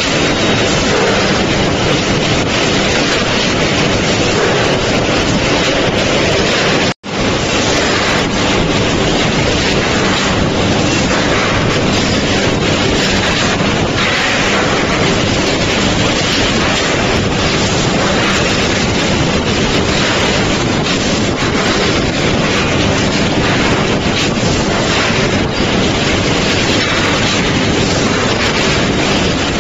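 Loud, steady industrial machinery noise from the ingot casting and stacking line: a dense, even rush with no distinct knocks or strokes. It cuts out for an instant about seven seconds in.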